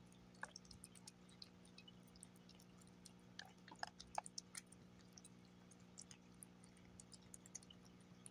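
Cat licking and chewing wet beef-and-gravy pâté: soft, scattered wet smacks and clicks of its tongue and mouth, busiest about three to four and a half seconds in.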